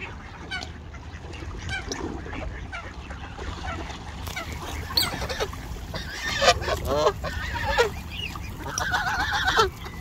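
Canada geese honking: a few faint calls at first, then loud honks from about six seconds in, in two bunches, over a steady low rumble.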